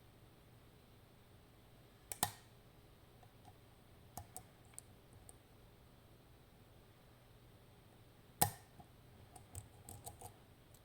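Lock pick working the pins of a DOM RN pin tumbler lock: faint scattered ticks and clicks as pins set under tension, with a louder click about two seconds in and the loudest one near the end.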